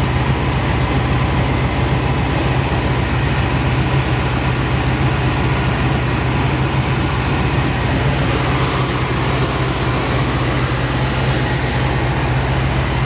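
Freshly rebuilt 427 cubic-inch big-block V8 of a 1969 Chevrolet Camaro SS idling steadily, breathing through ceramic-coated headers and a new exhaust.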